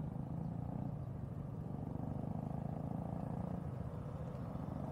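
Suzuki Gixxer single-cylinder motorcycle engine running steadily while riding, a constant low hum with road noise.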